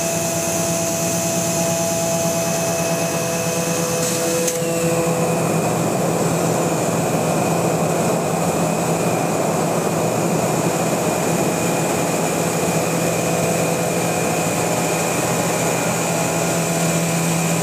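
Machinery of a robotic milling cell running with a steady whir, a low hum and a few faint steady tones. About four and a half seconds in, the higher tones stop and the noise turns rougher and a little louder.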